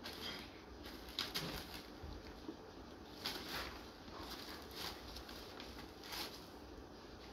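Plastic bags rustling and crinkling in a few short bursts as kittens climb and scrabble over them.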